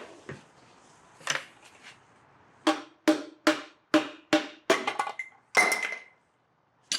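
A run of about seven sharp hammer knocks, about two and a half a second, after a single knock near the start: a piston being tapped out of the GM 3.6 V6's cylinder bore after its rod cap has been removed.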